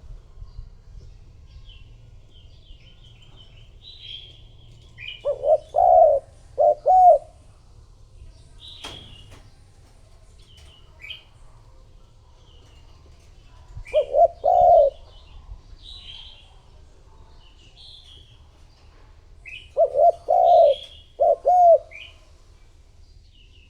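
Spotted dove cooing: three short phrases of low coos, each about eight seconds after the last. Small birds chirp at a high pitch throughout, and a single click sounds about nine seconds in.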